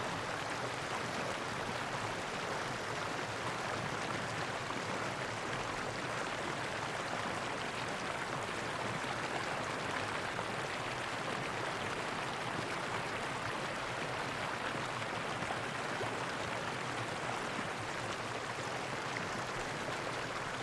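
Steady, even rush of flowing water, with no distinct calls or splashes.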